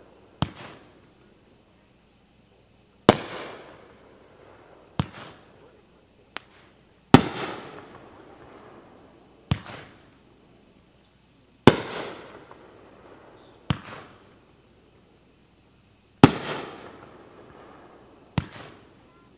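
Magnus Fireworks 'Time to Honor' nine-shot aerial fireworks item firing one shot every four to five seconds. Each sharp launch thump is followed about two seconds later by a much louder shell burst that dies away over a couple of seconds.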